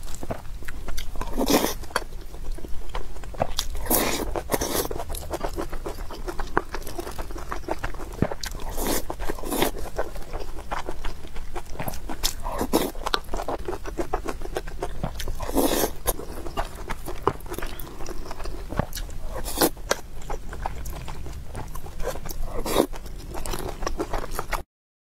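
Close-miked chewing and eating of rice dishes: wet mouth noises and short crunchy clicks, with a wooden spoon scooping in a ceramic bowl. The sound cuts out completely for about a second near the end.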